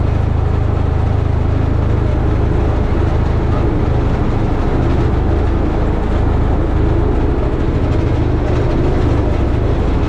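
Ride-on compaction roller's engine running steadily as the roller drives, a loud, even low rumble. The drum vibration stays switched on, which the operator suspects is a fault in the vibration button.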